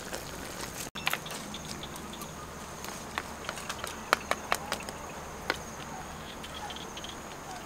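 Outdoor ambience with the steady high drone of insects, and a scatter of short sharp clicks and ticks a few seconds in.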